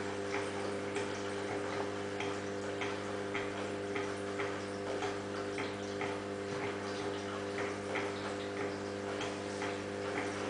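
Steady low electrical hum of aquarium equipment, such as a pump, with light ticking clicks about twice a second and faint water sounds, like bubbles or drips in the tank.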